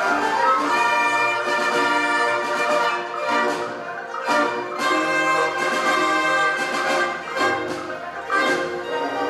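Chinese orchestra playing: bowed strings, plucked lutes, dulcimer and winds in full ensemble, with several sharp accented strokes through the middle.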